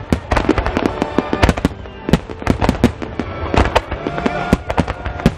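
A barrage of aerial firework shells bursting, several sharp bangs a second overlapping one another over a continuous low rumble.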